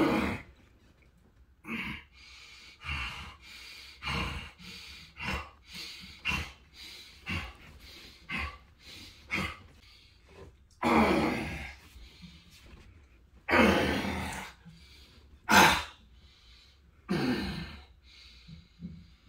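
A man breathing hard in short, regular huffs about once a second as he strains through flexing poses. In the second half come four longer, louder voiced grunts.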